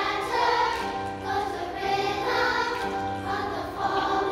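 Children's choir singing a song together, accompanied by piano.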